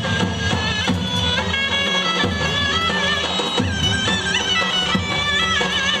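Turkish zeybek folk dance music: a shrill reed wind instrument plays an ornamented, wavering melody over a low drum accompaniment.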